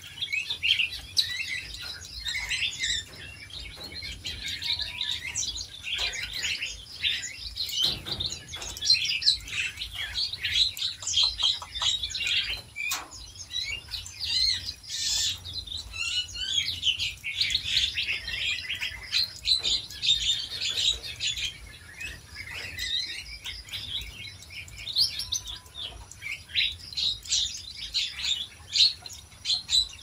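A chorus of many small songbirds in an aviary, with dense overlapping high chirps and calls that go on without a break.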